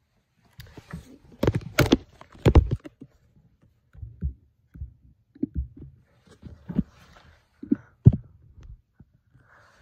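Handling noise of a phone camera being picked up, moved and set down: a run of loud bumps and rubbing in the first few seconds, then scattered lighter knocks.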